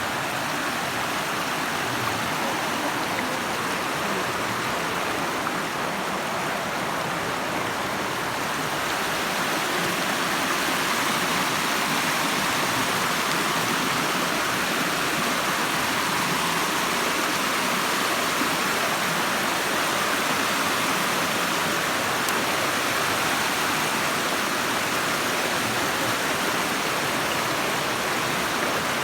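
Waterfall rushing steadily, its water noise growing a little louder about a third of the way through.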